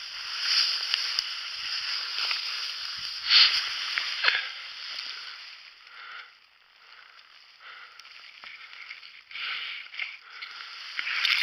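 Dry ferns and brush rustling and swishing as a person pushes through them, fronds brushing close past the microphone. The rustling eases for a few seconds in the middle, then picks up again near the end.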